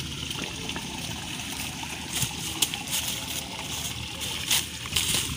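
Dry bamboo leaf litter rustling and crackling as it is scraped and dug with a stick, with a handful of sharp crackles in the second half. Under it a steady hiss like flowing water.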